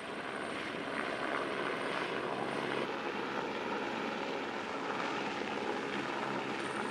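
Steady engine drone with a thin high whine that drops out for a few seconds in the middle and returns near the end.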